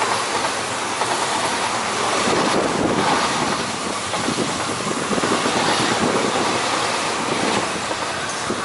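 East Rail Line Metro-Cammell electric multiple unit passing: steady wheel-on-rail running noise with a dense patter of rail clicks.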